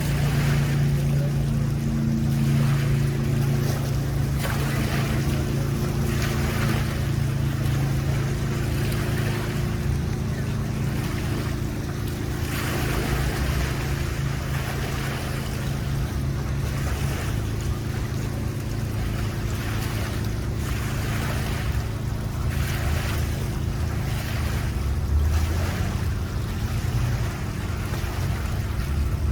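Motorboat engine running steadily under way, with water rushing past the hull and wind noise that swells and fades every second or two.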